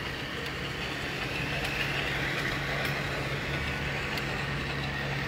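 A steady low motor hum over outdoor background noise, with a few faint clicks.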